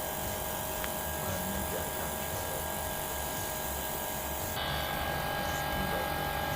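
Steady electric motor hum with a few steady tones over a low rumble. The sound shifts abruptly about four and a half seconds in and runs on slightly louder.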